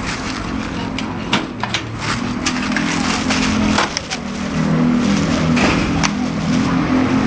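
A motor vehicle's engine running close by, its low hum growing stronger in the second half, over a steady hiss, with scattered sharp clicks.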